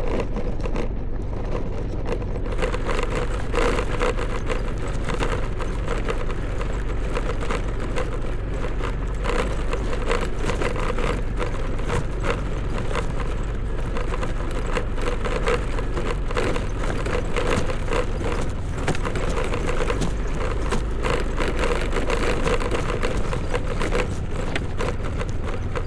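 A two-wheeler's engine running steadily while riding over a rough, stony off-road track, with constant rattling and clatter from the bumpy ride.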